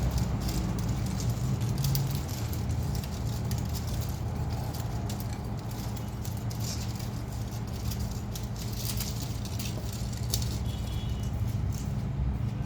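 A steady low engine hum, with scattered light rattles and clicks over it.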